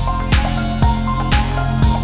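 Electronic background music with a steady beat: a kick drum about twice a second, off-beat claps and a held synth line.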